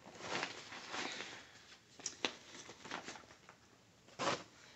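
Rustling and light clicks from cross-stitch fabric and project materials being handled and set aside, with a louder rustle about four seconds in.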